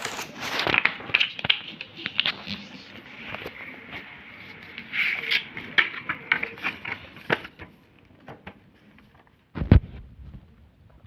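Sheet of paper crackling and rustling as it is handled and folded, with a quick run of sharp crinkles, then quieter; a single dull thump near the end.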